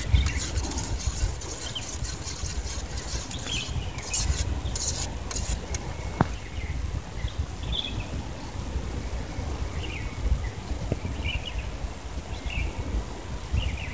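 A spoon stirring a thick, wet spice paste in an aluminium pot, with scratchy stirring noises through the first half. Small birds chirp now and then over a steady low outdoor rumble.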